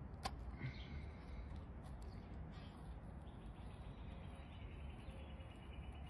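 Faint outdoor background: a low steady rumble with a few faint bird chirps, and one sharp click about a quarter of a second in.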